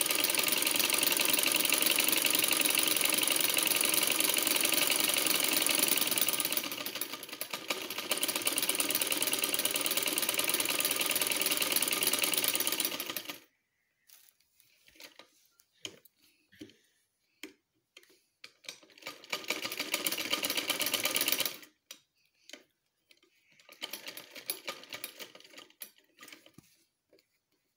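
Vintage sewing machine stitching in a long steady run of about thirteen seconds that eases off briefly partway through, then stops. A shorter run of about two seconds follows later, between faint rustles and clicks of cloth being handled.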